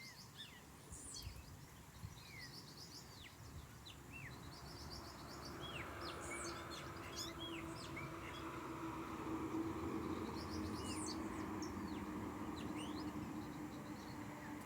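Small birds chirping: many short, separate chirps, some curving down in pitch. From about four seconds in a steady low hum rises under them and stays.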